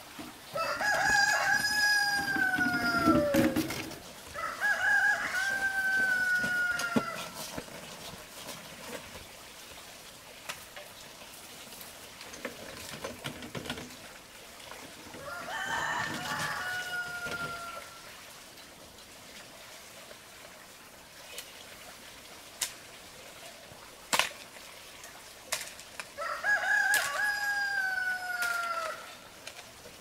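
A rooster crowing four times, each crow a long call that falls in pitch at the end. There are a few sharp knocks between the crows.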